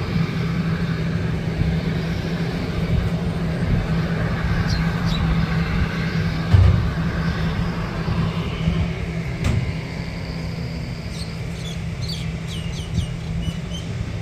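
Jet airliner's engines giving a steady low rumble that eases slightly after about ten seconds. Short bird chirps come several times near the end.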